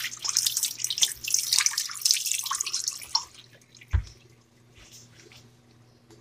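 Kitchen tap running as an eggplant is rinsed under it in the sink; the water stops after about three seconds. A single thump about four seconds in.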